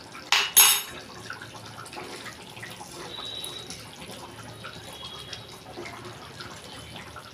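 A cooking utensil knocks sharply twice against a clay kadai about half a second in. Then a thin curry gravy sloshes and bubbles in the pot as it is stirred, with small scattered clicks.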